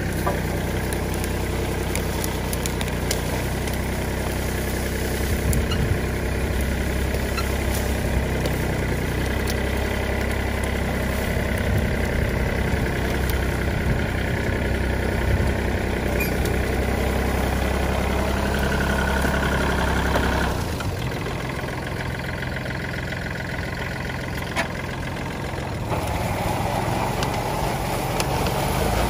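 Kubota L3408DI tractor's diesel engine running steadily as it pulls a cassava-digging shank through the soil. The engine note drops for several seconds about two-thirds of the way through, then picks up again.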